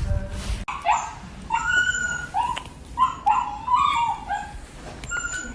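A puppy whimpering and yipping: a string of short, high-pitched whines, several falling in pitch.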